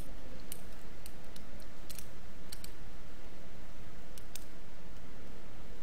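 Allen key clicking against the screw heads as the screws of a single fuel cell are tightened: short, sharp metallic clicks at an irregular pace, bunched in the first half and two more a little past four seconds, over a steady low hum.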